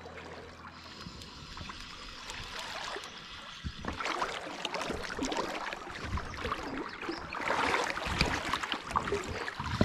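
River water flowing and lapping, with irregular knocks, splashes and rustles that grow louder and busier about four seconds in.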